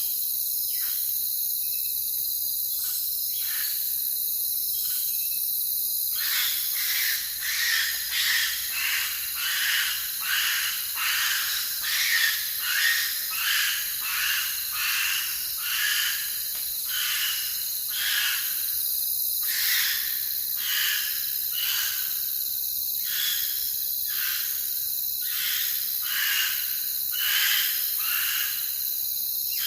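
Crickets trilling steadily in a night chorus, with an owl calling over it: short high-pitched notes repeated about once a second, starting about six seconds in.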